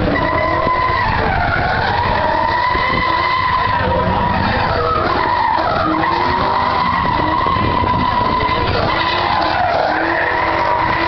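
A car doing a burnout: its engine is held at high revs with the pitch dipping and climbing back several times, over a steady rush of spinning, smoking tyres.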